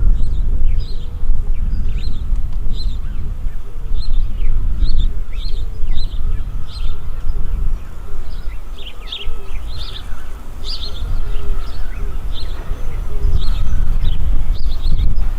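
Small birds chirping: many short, high chirps repeated irregularly throughout. A loud, uneven low rumble runs underneath.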